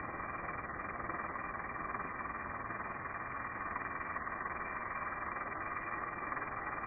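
Pressure washer running steadily, its spray making an even, unbroken hiss.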